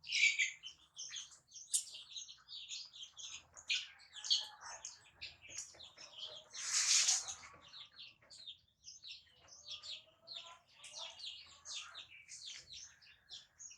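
Small birds chirping busily and without a break, in short high chirps, with a brief hissing rustle about seven seconds in.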